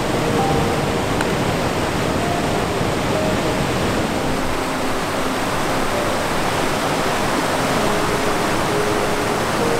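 Creek water rushing over granite rapids: a steady, loud rushing that does not let up.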